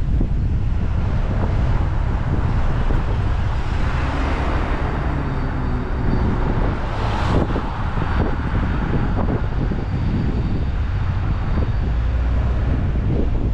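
Steady low rumble of road and wind noise from a car driving through city traffic, with a brief whoosh about seven seconds in.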